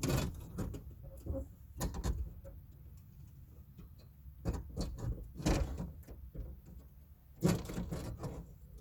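Irregular metallic knocks, clinks and rattles as a replacement power window regulator is handled and bolted into a pickup's rear door, with a louder run of knocks near the end.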